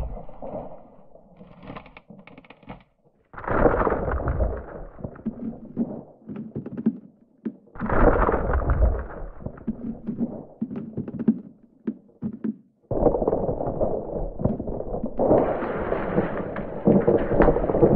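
Iceberg breaking apart: ice cracking and falling in rumbling bouts with sharp cracks, starting about three, eight and thirteen seconds in, the last running on and growing louder.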